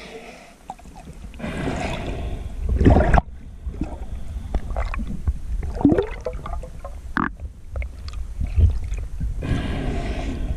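Underwater water noise against the camera housing as a line is hauled in by hand: two bursts of rushing, bubbling water, the first cutting off suddenly, with scattered clicks and knocks between them.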